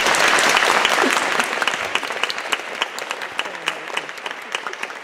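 Wedding guests applauding, loudest at the start and then thinning out into scattered individual claps.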